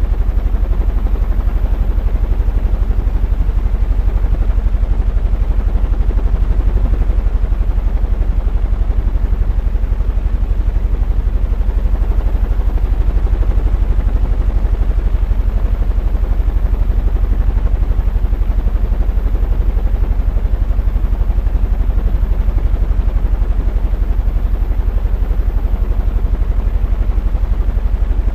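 Electric fan running steadily, its low hum carrying a fast, even pulse from the spinning blades.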